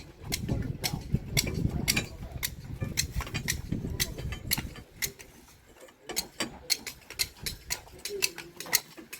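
Irregular sharp metallic clicks and clinks, a few a second, over a low rumble that dies away about halfway through.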